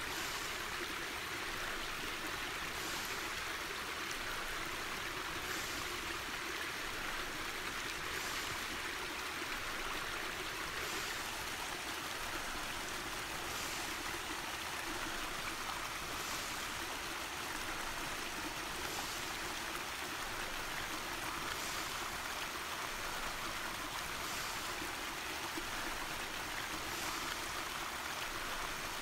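A small stream running over rocks: a steady, even rushing of water.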